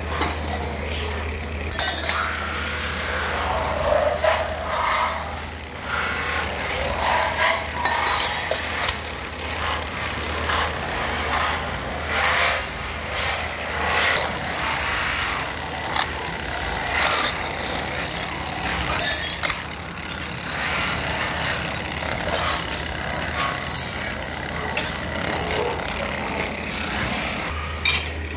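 Stainless steel tumblers clinking and clattering against one another in irregular metallic knocks, over the steady low hum of a polishing lathe's motor.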